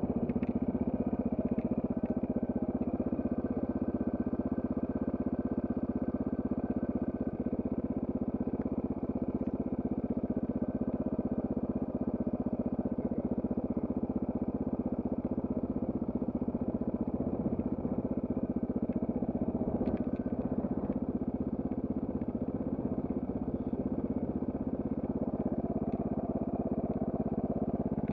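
Trail motorcycle engine running at a steady, unchanging speed.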